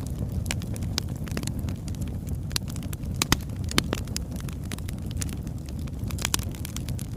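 Burning wood fire crackling: irregular sharp pops and snaps over a steady low rush of the flames, with two louder pops about halfway through.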